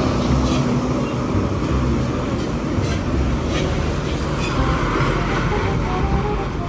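Steady, loud rumble of a heavy road vehicle's engine and tyres, with a few faint ticks.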